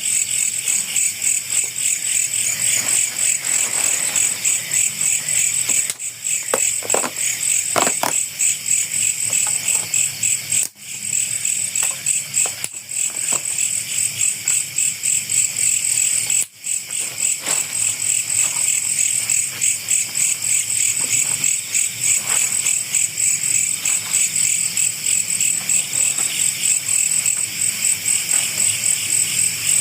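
Chorus of night insects chirring continuously, a dense high-pitched pulsing drone that drops out briefly twice, about eleven seconds and sixteen seconds in.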